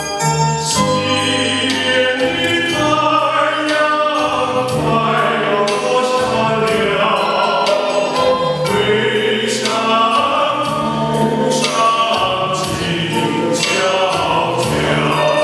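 Men's voices singing a Chinese song in chorus over an instrumental accompaniment with a steady beat.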